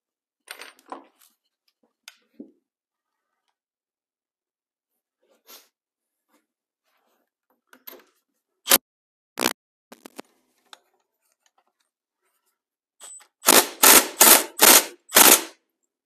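Impact wrench hammering on a crankcase puller's centre bolt in about five short bursts near the end, pressing the case halves apart off the crankshaft of a Suzuki TS185 two-stroke engine. Before that come a few faint clicks and two sharp metal knocks.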